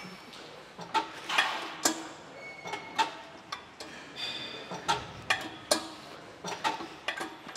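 Sharp metallic clicks and clanks of gym weight equipment, some ringing briefly, coming irregularly about once or twice a second during a set of seated rows.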